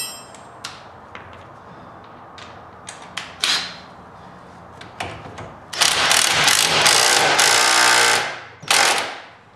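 Cordless impact driver hammering a nut tight on a golf cart spindle bolt. It runs in one long burst of about two and a half seconds in the second half, then a short burst. Before that come a few sharp clinks of tools and parts, one of them ringing.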